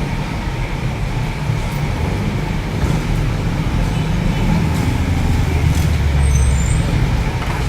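Road traffic with steady low engine noise; a heavy vehicle grows louder as it passes close by about five to seven seconds in.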